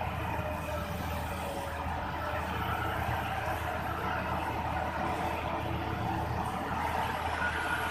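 Diesel engine of heavy open-cast mining machinery idling with a steady low hum.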